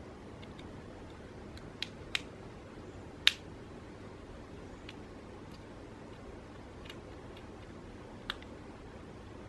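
Small, sharp clicks and taps of a precision screwdriver and tiny parts against the phone's frame during disassembly: about six scattered ticks, the loudest about three seconds in.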